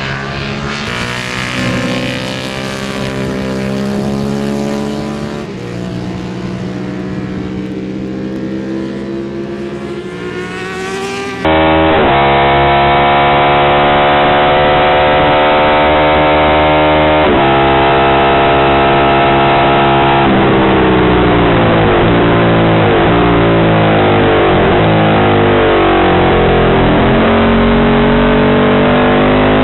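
Race-prepared Ducati 750 Imola-style bevel-drive V-twin with a short-stroke engine, at racing speed. At first it is heard from trackside as the bike runs through a corner. About a third of the way in it turns suddenly loud and close, heard from on board, held at high revs with small pitch steps at gear changes, then falling as it slows and rising again under acceleration near the end.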